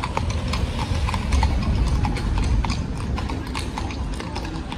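Horse hooves clip-clopping, several irregular strikes a second, over a low rumble.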